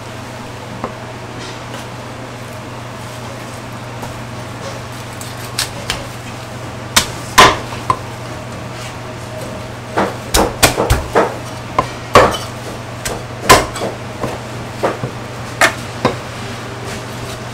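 A steel cleaver chopping through roast poultry on a thick wooden chopping block. About a dozen sharp, irregular chops start a few seconds in, over a steady low hum.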